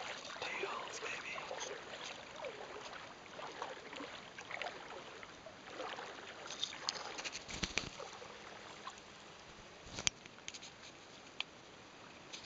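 Gentle water lapping against the hull of a small boat, with scattered light clicks and knocks and one sharper knock about ten seconds in.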